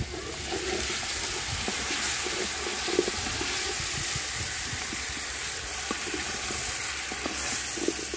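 Cooked macaroni sizzling as it is sautéed in a hot pan, with a steady hiss and the small clicks and scrapes of it being stirred.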